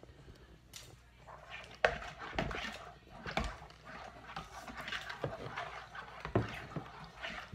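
A long metal spoon stirring sticky sourdough dough in a large plastic mixing bowl: irregular scraping, with sharp knocks of the spoon against the bowl about two seconds in and again near the end.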